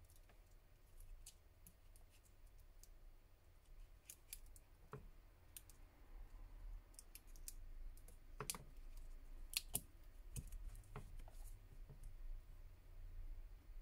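Faint scattered clicks and taps of hands swapping a smartphone battery and pressing its connector onto the mainboard, the sharpest two clicks a little over a second apart past the middle, over a low steady hum.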